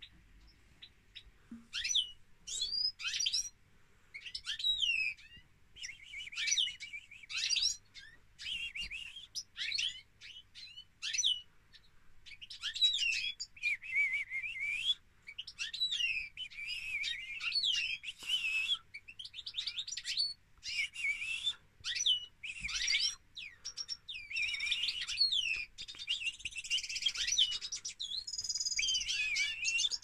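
Caged European goldfinch and canary singing: long runs of rapid twittering, trilling and warbling phrases, one after another with short breaks, starting about two seconds in.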